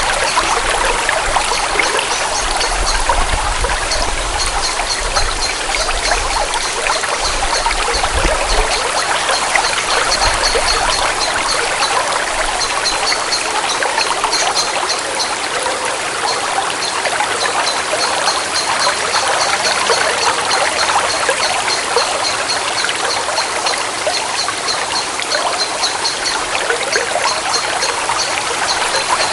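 Forest stream trickling steadily, with a rapid run of short, high chirps repeating over the water through most of it.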